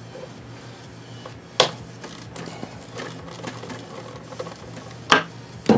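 Hand tools working a motorcycle's front brake line fitting: light ratchet clicking and sharp metal clinks, the loudest about a second and a half in and twice near the end.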